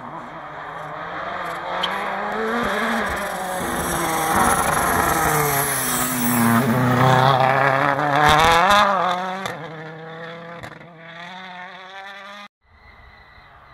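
Toyota Yaris WRC rally car's turbocharged 1.6-litre four-cylinder engine revving up through the gears. The pitch climbs and falls back with each shift as the car approaches and passes close by. It is loudest a little past the middle, then fades, and the sound drops away suddenly shortly before the end.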